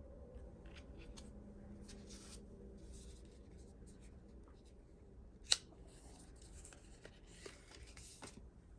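Quiet hand-handling of album packaging: a run of soft rustles and scrapes of paper and plastic, with one sharp click about halfway through.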